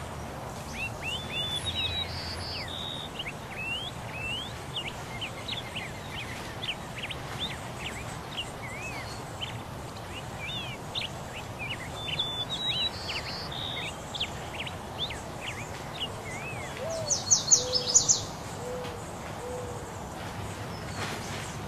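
Wild birds chirping and calling, many quick high chirps and sweeps, with a louder burst of high chirps and a few short low hoot-like calls near the end.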